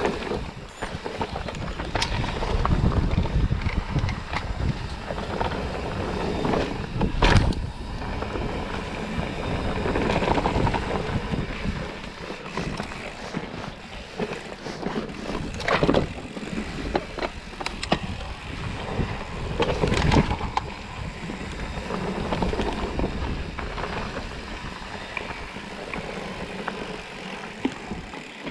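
Mountain bike riding down a rough dirt forest trail: continuous tyre noise and frame and chain rattle, with wind on the microphone. Sharp knocks come now and then as the bike hits bumps and roots, the loudest about seven seconds in.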